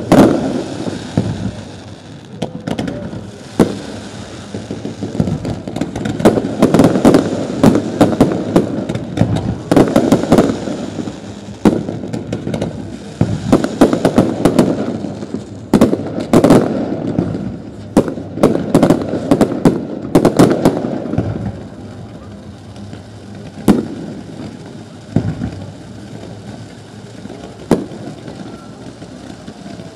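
Fireworks display: rapid volleys of bangs and crackles from aerial shells and rising comets, densest through the first two-thirds. It then thins out to a few single bangs near the end.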